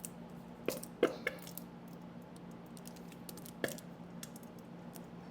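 A few light clicks and knocks from kitchen things being handled, three close together about a second in and one more around three and a half seconds in, over a steady low hum.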